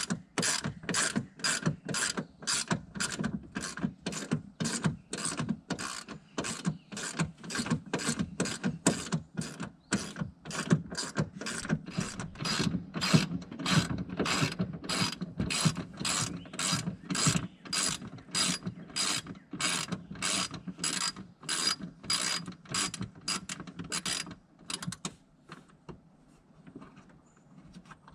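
Hand ratchet wrench clicking in steady, even strokes, about two a second, as a bolt is backed out; the ratcheting stops near the end.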